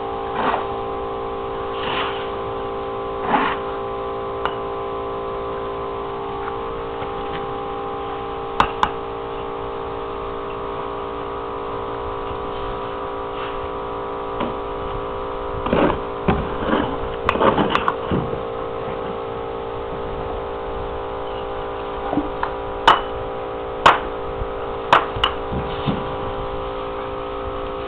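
Steady mechanical hum with several pitches held level throughout. Over it come sharp clicks and knocks of steel trowels tapping bricks into mortar: scattered at first, a cluster about halfway through, and several more near the end.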